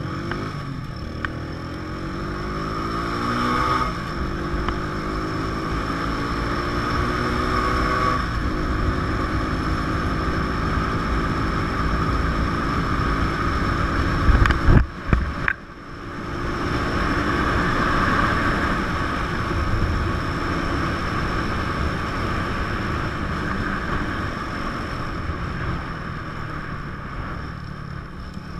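150 cc motorcycle engine pulling up through the gears, its pitch rising and then holding at a steady cruise, with wind rushing over the microphone. About halfway there is a brief loud burst and the sound dips for a moment before the engine climbs again.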